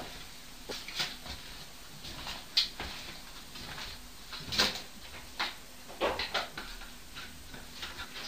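Irregular household knocks and clicks, like cupboard doors or thuds through a ceiling, the two loudest about two and a half and four and a half seconds in.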